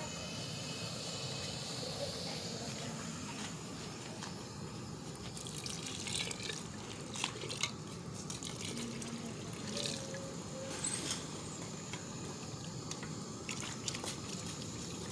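Water poured from a jug into an aluminium pressure cooker pot, splashing and trickling, with a few light knocks.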